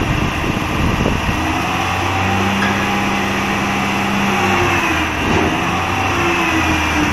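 Roll-off truck's diesel engine running under hydraulic hoist load while the tilted container is worked: a steady engine hum with held whining tones that shift slightly in pitch.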